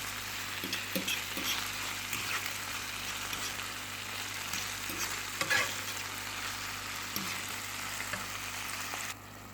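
Fat sizzling in a frying pan of broccoli, pork belly and tomatoes as eggs are cracked in, with scattered light clicks and a sharper tap about five and a half seconds in. The sizzle cuts off abruptly near the end.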